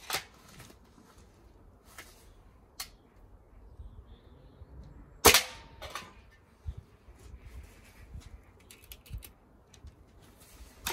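Hatsan Striker Edge .22 spring-piston air rifle firing: one sharp crack about five seconds in, the loudest sound, with a brief ring after it. Fainter clicks and knocks come before and after it, the loudest of these right at the start.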